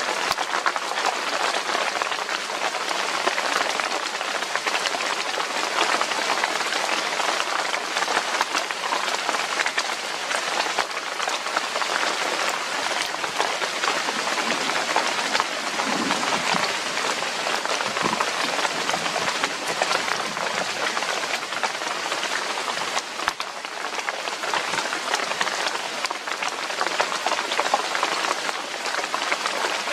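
Steady rain falling: a dense, even hiss made up of many small drop impacts.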